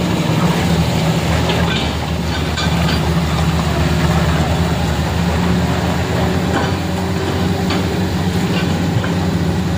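A truck's engine running steadily at an even pitch.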